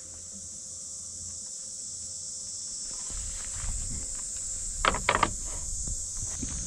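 Steady high-pitched buzzing of an insect chorus in the grass. About five seconds in come three quick sharp knocks, as things are handled at a wooden camp table.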